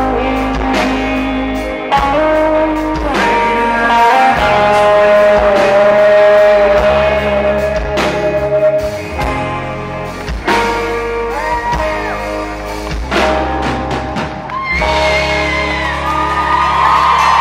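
Live rock band playing, with electric guitar and a male singer holding long notes. The sound is distorted, the camera microphone overloaded by a guitar amplifier blasting right beside it.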